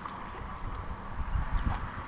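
Wind rumbling on an action camera's microphone, with a few faint ticks.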